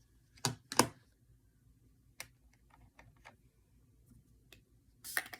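Two sharp taps in quick succession, then a few faint ticks and a short cluster of clicks near the end: the small knocks of a makeup brush and eyeshadow palette being handled.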